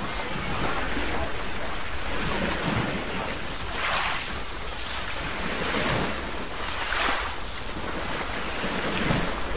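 Water rushing and splashing along the hull of a moving motorboat, surging every second or two as it cuts through the waves, with wind buffeting the microphone.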